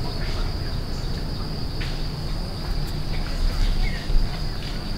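Insects in tropical forest making a steady, high-pitched drone, over a low rumble and a few faint clicks.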